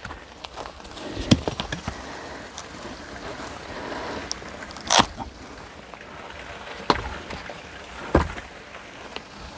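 Hatchet blows on firewood: four sharp chopping strikes at uneven intervals, the loudest about five seconds in, over a steady background noise.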